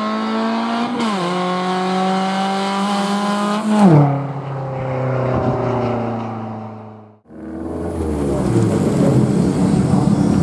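Race car engine at full throttle climbing toward the listener, its note rising and dropping sharply with two upshifts, loudest as it passes about four seconds in, then falling in pitch and fading as it drives away. About seven seconds in the sound cuts to the race car's engine idling close by, lower and rougher.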